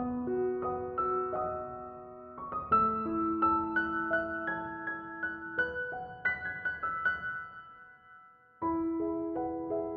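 Background piano music: a slow melody of single notes and chords. It fades almost to nothing and starts again about 8.7 s in.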